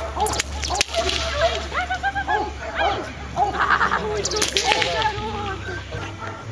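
Sharp cracks of a protection-training decoy's whip, a couple near the start and a quick cluster about four and a half seconds in.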